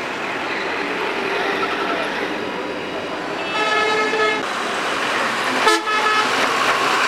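A vehicle horn blares for about a second over steady road traffic, then gives a short sharp toot about two seconds later, as a truck's engine passes close by.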